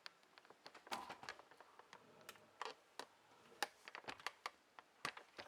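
Irregular light clicks and taps from hands working on computer hardware, a few of them sharper, as a graphics card is removed and fitted.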